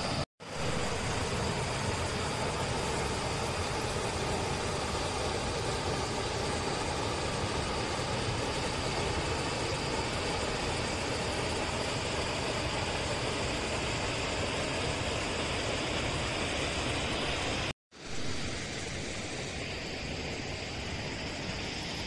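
Waterfall with a steady, even rush of falling water. It drops out to silence twice, briefly near the start and about 18 seconds in, and after the second break the rush is a little softer.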